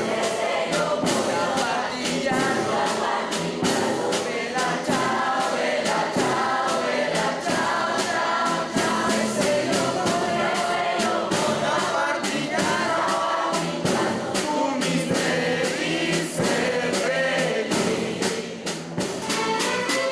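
Mixed ensemble of strings, winds and percussion playing traditional Mixtec music, with wavering melody lines over a steady percussion beat.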